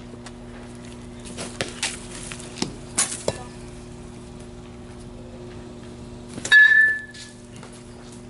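A youth baseball bat hits a pitched ball with a sharp crack that rings briefly, about two-thirds of the way through. A few lighter clicks and taps come earlier, over a steady low hum.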